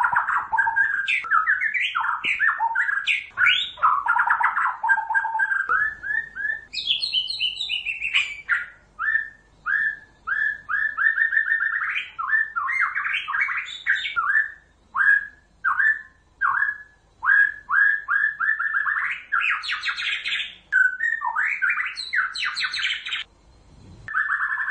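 White-rumped shama singing: a fast, varied run of whistled phrases and chirps with short gaps between them, breaking off briefly near the end.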